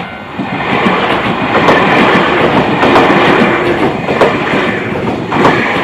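Keio 1000 series electric train passing close by at a level crossing, its wheels clicking over the rail joints in a steady rhythm under the rushing noise of the cars.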